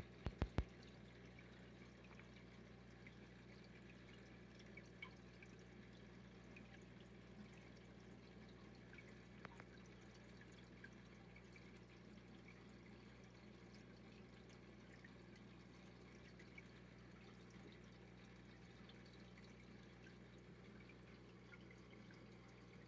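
Near silence: the faint steady low hum and scattered faint drips of an aquarium's filter and water circulation. A couple of sharp clicks at the very start.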